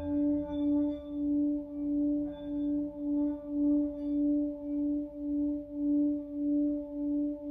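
Tibetan singing bowl ringing in one sustained low tone that swells and fades in a steady wobble about twice a second.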